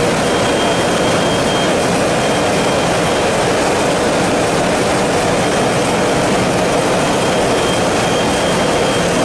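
Steady mechanical noise of an industrial french fries processing line running: conveyor motors and potato strips moving along stainless-steel conveyors, with a faint high whine that comes and goes.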